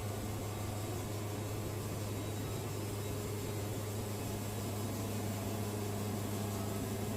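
Wood-Mizer portable band sawmill running with a steady, even hum.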